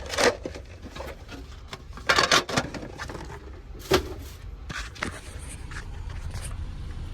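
Pokémon trading cards being handled: brief rubbing and scraping rustles, the busiest about two seconds in and a sharp one near four seconds, over a steady low rumble.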